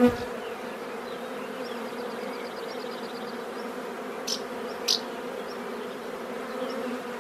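A swarm of honeybees buzzing in a steady low hum as the bees settle into a new straw skep hive. There is a knock at the very start and two short high-pitched sounds about four and five seconds in.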